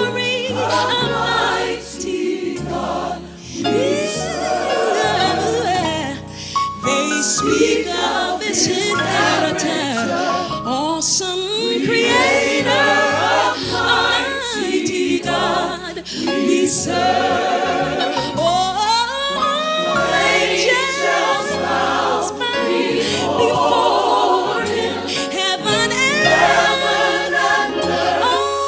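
Gospel choir singing with instrumental backing and a moving bass line.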